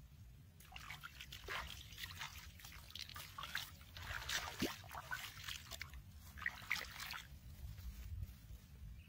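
Shallow muddy water splashing and trickling as bare feet and a hand stir and scoop through it: a string of small splashes and drips that dies away near the end.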